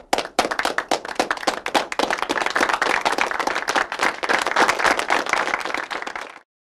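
Applause: many hands clapping in a dense, steady patter that cuts off suddenly near the end.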